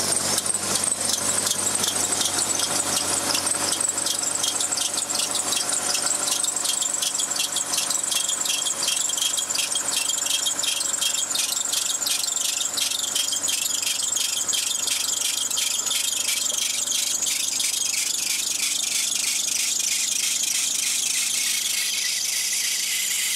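Crash-damaged 1988 Toyota Camry's 3S-FE four-cylinder engine running just after a jump start, with a loud, high squealing hiss from the smashed front end that pulses about four times a second and slows near the end.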